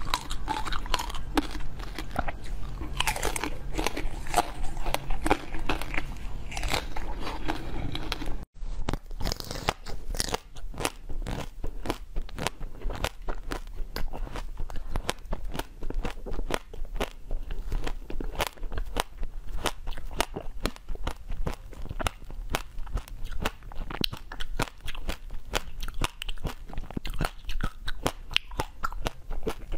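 Close-up biting and chewing of hard frozen colored ice, with crunching and crackling throughout. The sound drops out briefly about eight and a half seconds in and resumes as denser, sharper crackles.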